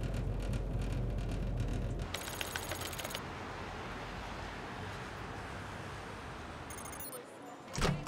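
Steady low hum of ship's machinery, which cuts off about two seconds in to a soft even background ambience. Twice there is a brief run of quick high electronic chattering, like a data or text-typing effect. A short loud hit comes just before the end.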